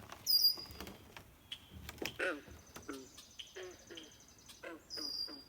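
Frogs and birds calling at a pond. Short, low, twanging calls repeat several times in the middle, and high whistled bird notes fall in pitch near the start and again near the end, over scattered light clicks.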